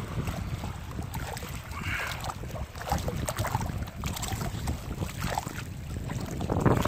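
Wind buffeting the microphone in a steady low rumble, with scattered light knocks and clatters and two brief higher sounds, one about two seconds in and one near the end.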